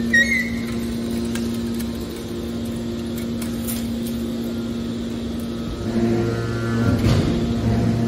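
Hydraulic scrap-metal baler's power unit running with a steady electric hum, a short click right at the start. About six seconds in a deeper hum joins and the sound grows louder as the machine changes what it is doing.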